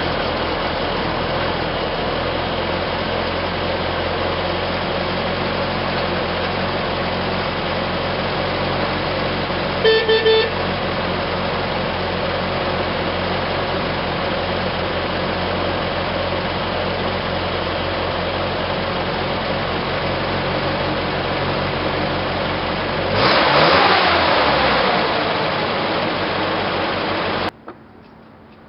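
A 1969 Land Rover Series IIA's new Rovers North high-performance engine idling steadily. A short horn toot comes about ten seconds in. Near the end the engine is revved once, with a rising pitch, and keeps running faster until the sound cuts off suddenly.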